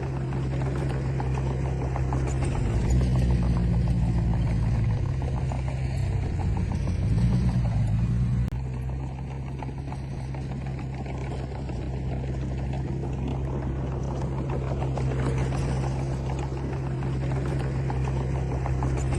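Diesel engine of a Komatsu D20P bulldozer working. Its pitch and loudness rise from about three seconds in as it pulls under load, drop suddenly at about eight and a half seconds, and it settles back to a steady run.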